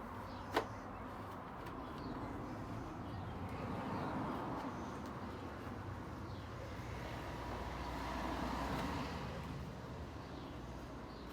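Road traffic going by, swelling and fading twice as vehicles pass, with a single sharp click about half a second in.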